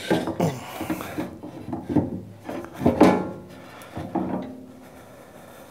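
A wooden block knocking and scraping as it is wedged under the lathe's heavy end cover, with the cover rubbing and clunking against the headstock as it is shifted into place. It is a run of uneven knocks and scrapes, the loudest about three seconds in.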